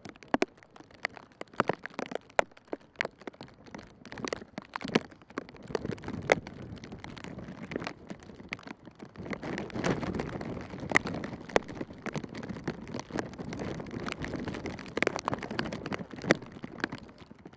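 Outdoor ambience with irregular sharp taps and knocks throughout, over a background noise that swells up for several seconds in the middle.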